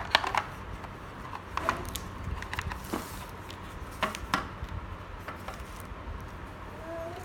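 Scattered light clicks and taps, with a brief rustle of paper or cardboard about three seconds in, as the small contents of a smartphone box are handled.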